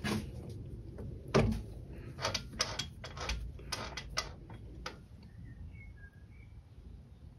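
Irregular clicks and knocks of hard objects being handled, coming quickest in the middle, then a few faint short high chirps near the end.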